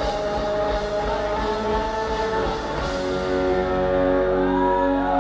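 Rock band playing live: electric guitars, drums and singing. About three seconds in, the drum beat falls away, leaving held guitar notes ringing on as the song winds down.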